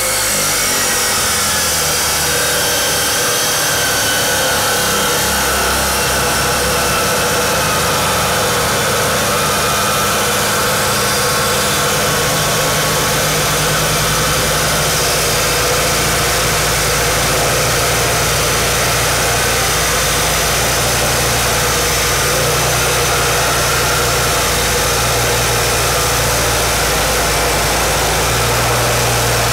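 Sumo SU-35 355 mm (14-inch) abrasive cut-off saw with a copper-wound motor, its disc grinding through a steel I-beam under load: a loud, steady grinding whine.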